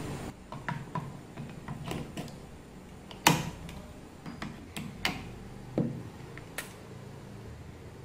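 Plastic clicks and knocks as D-cell batteries are handled and pressed into the battery compartments of a plastic aerosol dispenser. Several light ticks and a few sharper knocks, the loudest about three seconds in.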